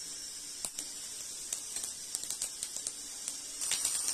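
Mustard, fenugreek and cumin seeds sizzling in hot sesame oil in a kadai, a steady hiss with scattered sharp pops of mustard seeds spluttering. The popping grows quicker and louder near the end as the mustard comes fully to the splutter.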